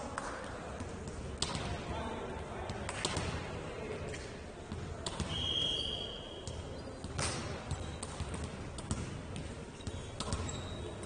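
Ball thuds on an indoor court during a match, several separate hard impacts over a steady hall background of indistinct player voices. About five seconds in comes a brief high-pitched tone.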